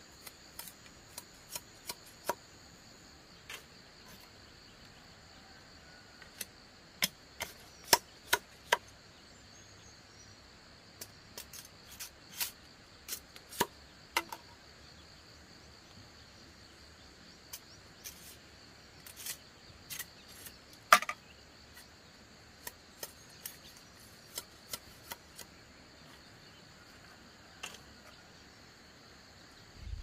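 Irregular sharp clicks and knocks, scattered singly and in small clusters, over a steady high chirring of insects.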